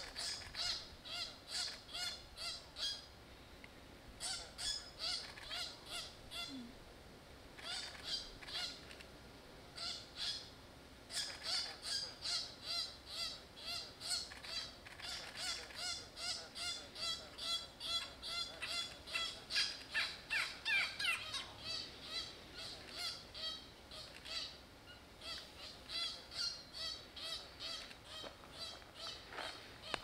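Animal calls repeated in bouts, about two to three a second, with short pauses between bouts; one call in the middle falls in pitch. They come from a grounded fruit bat under attack from a grey-headed bushshrike, or from the shrike itself.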